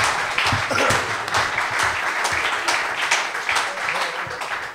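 Audience applauding and clapping, easing off near the end.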